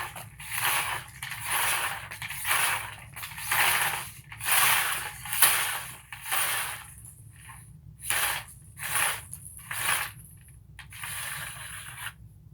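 The tape and reel of a Kobalt 100-foot long tape measure being worked by hand, giving a run of rasping strokes about every two-thirds of a second that thin out and soften near the end.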